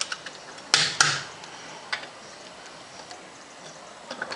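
Click-type torque wrench breaking over at its set torque of about 10 kgf·m on steel-wheel bolts being tightened in a crisscross pattern: two sharp clicks a quarter second apart about a second in, then a lighter click near two seconds.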